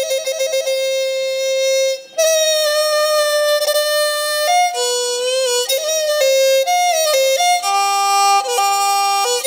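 Background music: a bowed string instrument plays a slow melody of long held notes with vibrato, with a short break about two seconds in. A lower sustained note joins underneath near the end.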